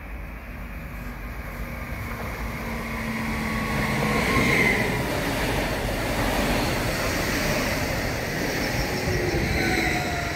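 A nordbahn Stadler FLIRT electric multiple unit runs in alongside the platform. It gets louder over the first four seconds or so, then holds steady, with the falling whine of its electric traction motors.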